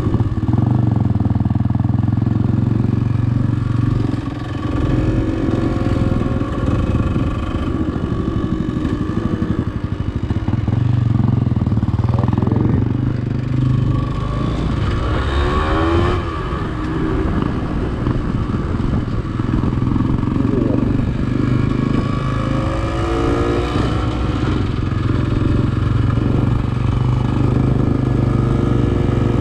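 Off-road motorcycle engine running at low speed, with the revs rising briefly twice, about halfway through and again near the three-quarter mark.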